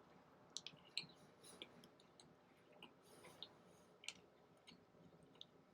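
Faint, scattered mouth clicks and chewing of someone eating a chicken sandwich: a few soft clicks over near silence.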